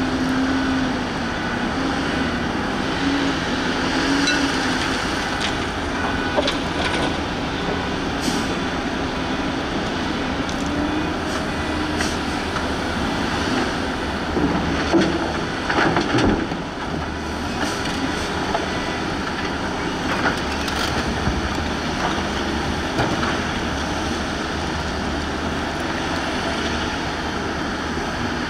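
Volvo EC210B crawler excavator working: steady engine and hydraulic noise, with a wavering hum in the first few seconds and scattered metallic clanks and knocks, the loudest around the middle.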